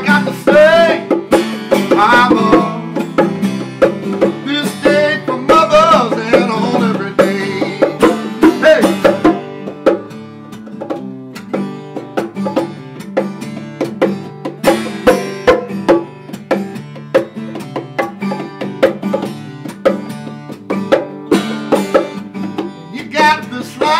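Acoustic guitar played live, with a man singing over it for about the first nine seconds. Then the guitar plays alone, and the singing comes back just at the end.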